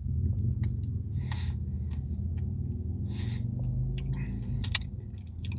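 Close-up eating of a brownie Blizzard ice cream: a steady low mouth rumble with breaths through the nose about every two seconds, and a few sharp clicks about four seconds in.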